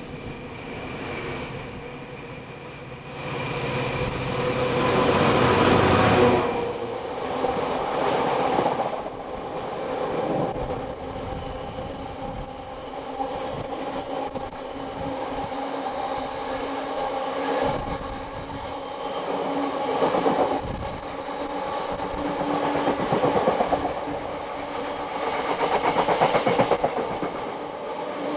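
Class 66 freight locomotive's two-stroke V12 diesel approaching and passing close by. Its engine note is loudest about five to six seconds in, then drops away suddenly. A long rake of bogie tank wagons follows, rolling past with steady wheel and rail clatter that swells and fades as the wagons go by.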